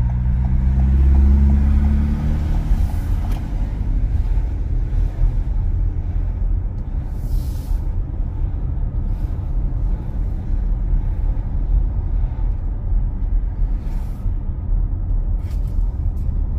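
Car engine and road rumble heard from inside the cabin while driving. The engine note rises over the first couple of seconds as the car speeds up, then settles into a steady low rumble.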